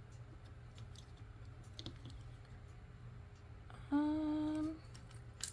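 A person hums one short, level note about four seconds in, between faint clicks of Lego pieces being handled.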